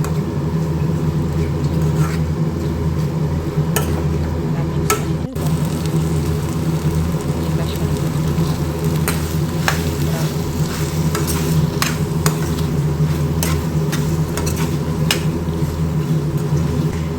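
Kitchen work over a steady low hum, with irregular sharp taps and clicks of a utensil against a pan or board. The hum breaks briefly about five seconds in.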